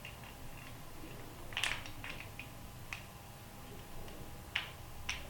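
Cast-iron Super Clamp being handled: a short metallic rattle of clicks about one and a half seconds in, then a few lighter separate ticks, as its side release pin is pressed and the stud worked in its socket.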